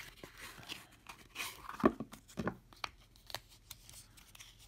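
Clicks and scrapes of a stiff, new Mossy Oak 11-in-1 multitool being worked open by hand, its blades and pliers not yet broken in. The loudest click comes about two seconds in, with several lighter clicks after it.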